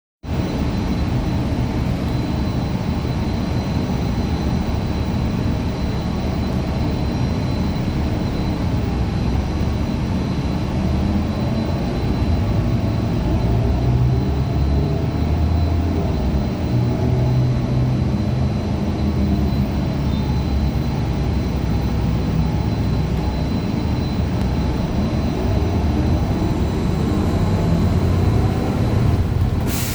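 Cabin sound of a 2015 Gillig Low Floor 40-foot CNG bus under way: its Cummins Westport ISL G engine rising and falling in pitch as it pulls through the gears of an Allison B400R transmission, which the uploader calls messed up, over steady road rumble. A short hiss near the end.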